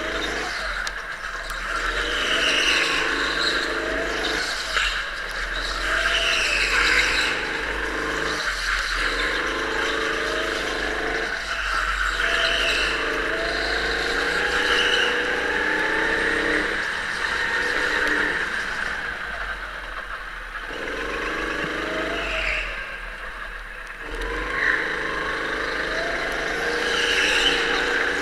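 Go-kart running at speed, its motor rising in pitch as it accelerates and dropping off every few seconds as it slows for corners, with high tyre squeals through the turns.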